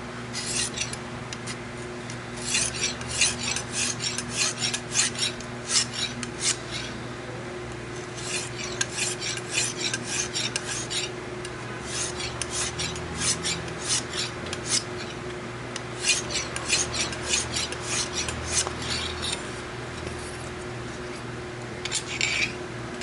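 Lansky guided sharpening kit's synthetic hone scraping along a knife edge in quick rasping strokes, in runs of several strokes with short pauses between: light finishing passes to touch up the edge after sharpening.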